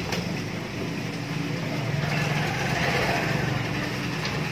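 A small engine idling steadily, growing a little louder about two seconds in, with one sharp knock just after the start.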